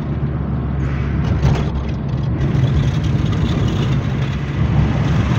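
Steady engine hum and road noise heard from inside a moving car's cabin.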